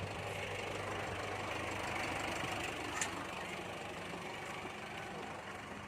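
Engine idling steadily, with a single short click about three seconds in.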